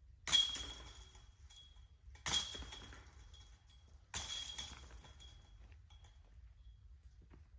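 Discs striking the chains of a disc golf basket three times, about two seconds apart, each a sharp metallic jangle that rings and dies away over about a second.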